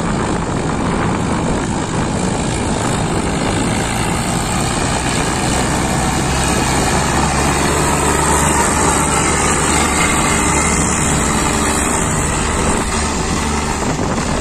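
Diesel tractor engine running steadily under load, hauling a trailer heaped with earth.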